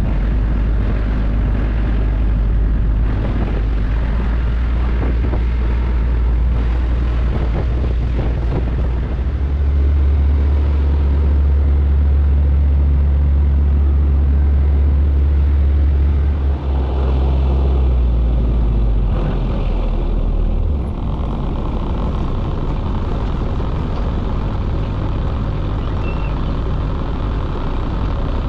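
A small fishing boat's inboard engine running under way, a steady low drone. Its note rises about a third of the way in and drops back about two-thirds through.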